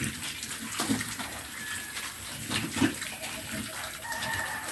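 Pigs eating at a feed trough: irregular wet chewing, slurping and snuffling smacks.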